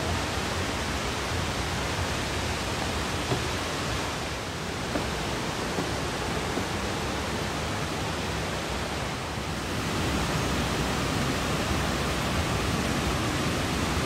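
Rushing water of a mountain river tumbling over rocky cascades in a gorge: a steady, even rush that grows a little louder about ten seconds in.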